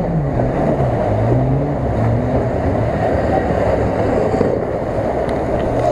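Off-road SUV engine running as the vehicle ploughs through shallow, slushy water, with the steady rush of splashing water over the engine.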